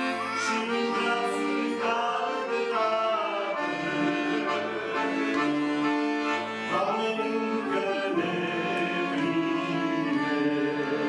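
Piano accordion playing held chords and a melody over bass notes.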